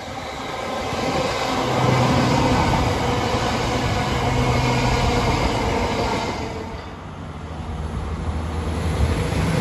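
East Midlands Railway diesel multiple unit passing close by, its underfloor engine droning with steady low tones, then fading. About a second later a second diesel unit, a Northern train, approaches and grows louder towards the end.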